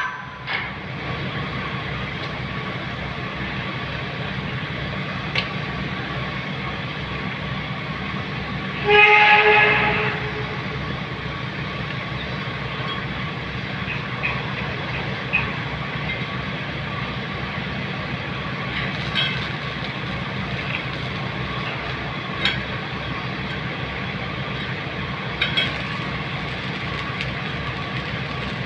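A steady machinery drone with a low hum. About nine seconds in, a horn sounds once for about a second, and a few light clicks come and go.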